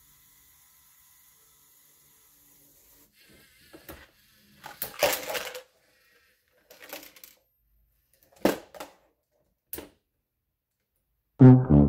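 Hard plastic clattering and knocking from a LEGO robot trash truck as the little trash can is tipped into the LEGO container, its contents rattling in, with a few separate knocks as the can is brought back down. Just before the end a sad-trombone 'fail' sound effect starts.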